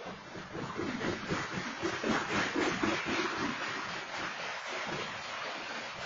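Freight train cars rolling past, with a continuous rattling clatter of steel wheels on rails. It swells about a second in and then holds steady.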